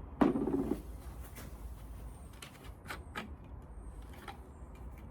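Handling of a plastic jerry can and the diesel heater's fuel tank as it is opened for filling: a short knock and scrape about a quarter second in, then a few faint clicks, over a low steady rumble.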